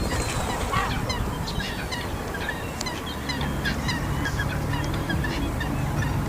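Many gulls calling at once, short overlapping cries from a crowd of birds over a steady low background noise. A low steady hum joins about three seconds in.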